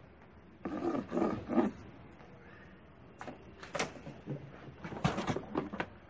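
Knocks, bumps and scraping as a plastic Bosch GAS 15 wet/dry vacuum and its hose are handled and lifted out of a cardboard box, in several separate strikes over the last three seconds. A louder, unclear noise of about a second comes about a second in.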